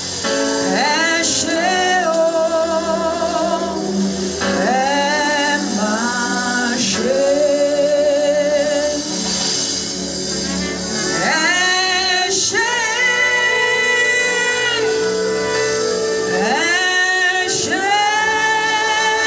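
Live gospel worship song: voices singing long phrases with vibrato and held notes over steady sustained instrumental backing.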